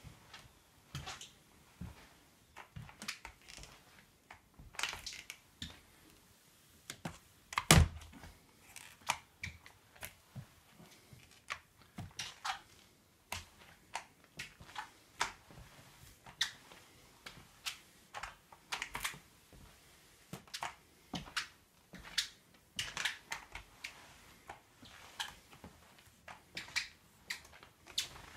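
Irregular short clacks and taps, about one or two a second, as a flat microfiber mop is worked back and forth across a hardwood floor, with one much louder knock about eight seconds in.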